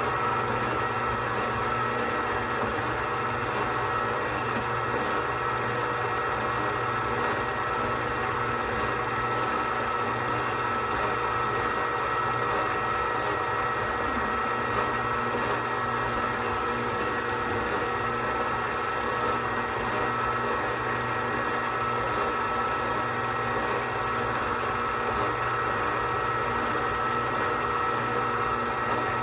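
Electric stand mixer running steadily at one speed while mixing bread-roll dough: a constant motor hum with a high steady tone, unchanged throughout.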